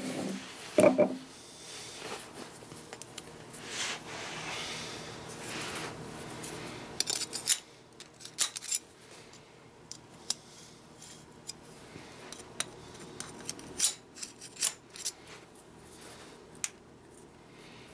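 Steel parts of a Morse taper wedge locking key being handled and worked with a screwdriver and hex key: scattered light metal clicks, taps and scraping, with one louder knock about a second in.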